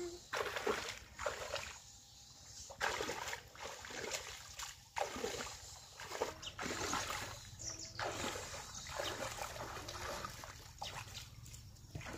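Shallow pond water splashing and sloshing in irregular bursts as a person wades through it and sweeps a hand scoop net through the water.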